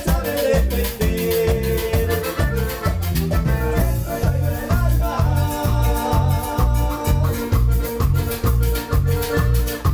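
Live band playing Latin dance music: guitars and drums over a steady bass beat of about two pulses a second.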